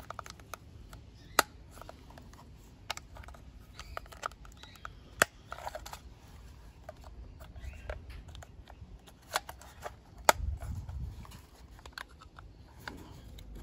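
Plastic toy wheels being pressed and snapped onto a toy train engine's chassis: several sharp plastic clicks a few seconds apart, with soft rubbing of the parts being handled between them.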